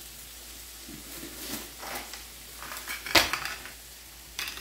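Dry spaghetti rattling and clicking in a clear plastic storage container as it is picked up and handled, with one sharp click about three seconds in.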